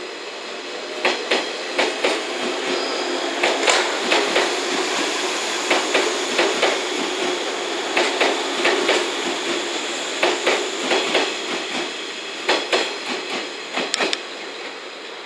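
JR West 117 series electric multiple unit passing slowly at close range, with a steady running hum. Its wheels clack sharply over the rail joints in clusters of clicks about every two seconds as each car's bogies cross.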